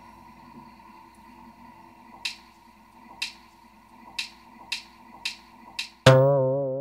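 Background music: a soft held chord with finger snaps coming at shorter and shorter gaps, then about six seconds in a loud plucked guitar note with a wavering tremolo that rings and fades.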